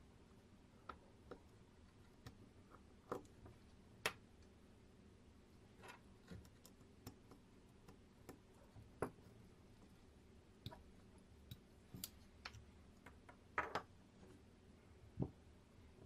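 Faint, irregular clicks and taps of hands handling wires and a small motor speed controller circuit board, about a dozen scattered knocks over a faint low hum.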